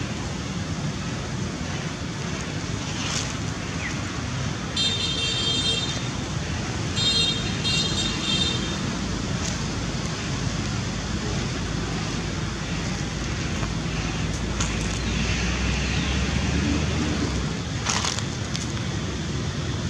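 Steady outdoor ambient noise with a low rumble. Two short bursts of high-pitched chirping come about five and seven seconds in, and a brief click sounds near the end.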